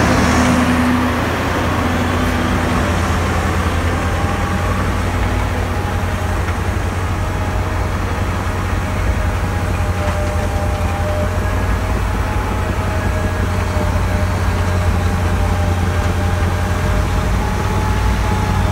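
Larue 7460 truck-loading snowblower with a 450 hp Allis-Chalmers engine running steadily under load as it blows snow into a dump truck: a deep steady drone with a rushing haze over it. It is louder for the first second or so, and faint steady whining tones come in above the drone from about four seconds in.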